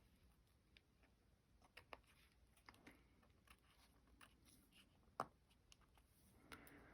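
Near silence, with a few faint taps and clicks of small paper pieces being handled on a craft desk, and one sharper click about five seconds in.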